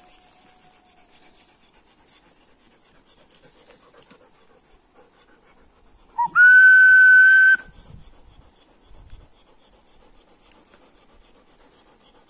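A person's loud whistle held on one steady pitch for about a second, about six seconds in, just after a brief shorter note: a call to a lost dog across a ravine. At the start, the echo of a shouted call fades out faintly.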